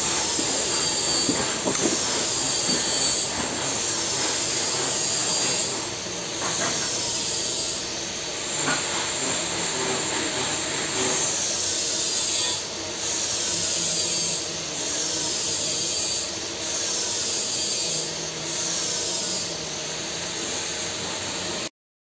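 TIG (argon) welding arc on a steel pipe joint, a steady loud hiss with a high whine, swelling and dipping about every two seconds. It cuts off suddenly near the end.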